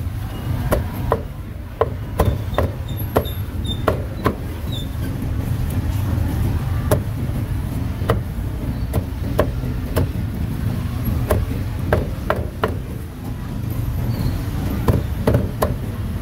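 Meat cleaver chopping a roast duck on a thick round wooden chopping block: a run of sharp, irregular chops in clusters with short pauses between them, over a steady low background rumble.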